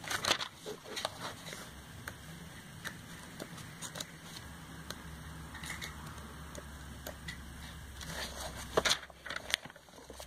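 Glossy paper catalogue pages being handled and turned: rustles and soft crackles in the first second or so and again near the end, with a faint low rumble in between.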